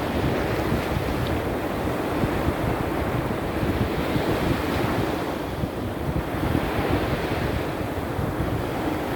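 Sea surf in a small storm: waves breaking and washing ashore in a continuous rush that swells and eases every few seconds, with wind rumbling on the microphone.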